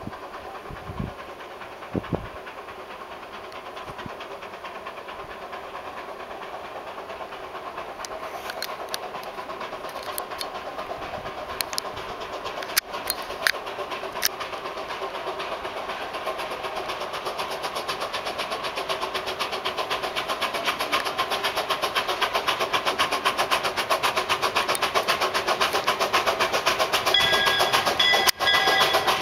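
Two-foot gauge steam locomotive working a train, its steady exhaust beats growing louder as it draws near. A few sharp clicks come in the middle, and near the end its whistle sounds, several tones at once.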